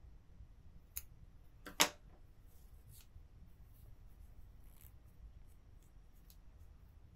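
Small scissors snipping cotton yarn, a sharp click a little before two seconds in, with a smaller click just before it. This is the yarn being cut off after the last crochet stitch. Faint ticks and rustles of the yarn being handled follow.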